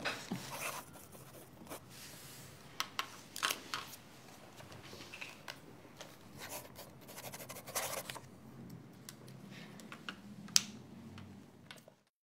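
Pen scratching on paper and sheets of paper being handled on a table as documents are signed, with scattered small clicks and taps; it fades out near the end.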